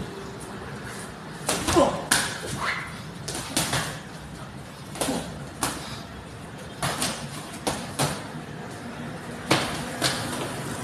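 Boxing gloves smacking against gloves, headgear and body during a sparring exchange: about a dozen sharp smacks in quick clusters of two or three, irregularly spaced.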